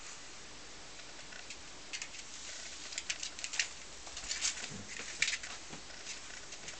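Tibetan mastiff puppies' claws tapping and pattering irregularly on a wooden floor as they scamper about, in quick clusters of clicks that are busiest in the middle.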